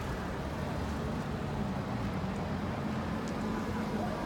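A vehicle running with a steady low rumble; a steady low hum sets in about a second and a half in.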